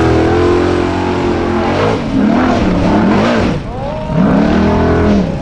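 Formula Offroad buggy's engine revving hard on a steep sand-hill climb. It is held high at first, then rises and falls in several quick surges in the second half as the throttle is worked.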